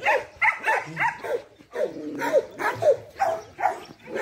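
Dogs barking in short, repeated barks, about two to three a second.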